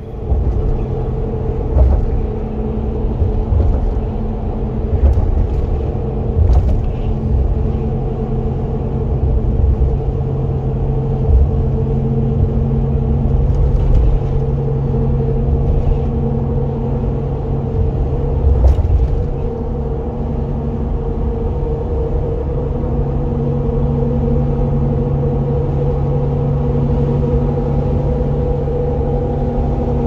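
Steady road noise inside a vehicle's cab cruising at highway speed: a low rumble with a constant engine and tyre hum, and a few brief knocks.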